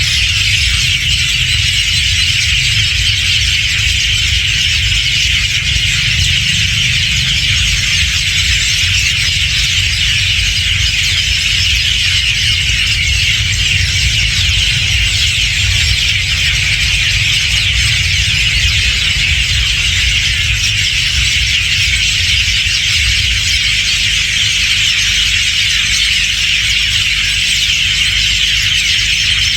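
Steady, dense chatter of a large flock of hundreds of birds, their high-pitched calls blending into one continuous din, over a low rumble.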